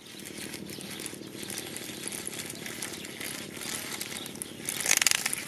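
Remote-control toy spider's small motor and plastic legs buzzing and clattering steadily while a puppy mouths it. A few louder bursts of rattling come near the end.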